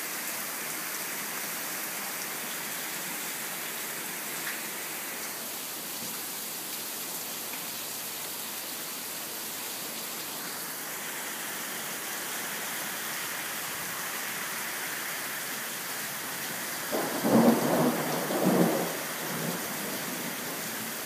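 Heavy rain pouring down steadily during a thunderstorm. About 17 seconds in, a loud rumble of thunder lasts about two seconds.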